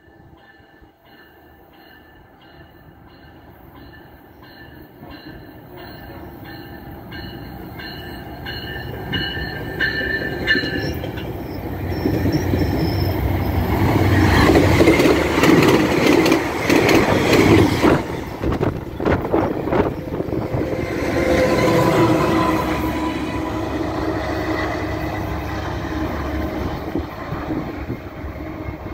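VIA Rail passenger train headed by a GE P42DC diesel locomotive approaching and speeding through a station. A rumble builds for about a dozen seconds and is loudest as the locomotive passes. The cars then rattle and click over the rail joints, with a second swell of engine sound. During the approach a faint high ringing pulses about twice a second.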